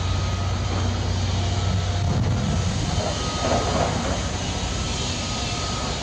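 Steady low engine drone of construction machinery, with a hum holding one pitch for about the first two seconds.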